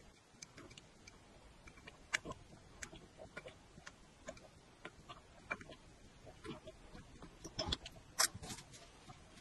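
Quiet gulps and wet mouth clicks of a person drinking broth straight from a large ceramic bowl, coming at irregular intervals, with a few louder clicks and knocks near the end.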